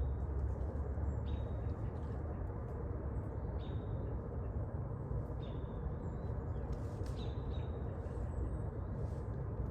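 Outdoor field ambience: a steady low rushing background with short, high bird chirps repeating irregularly every second or two.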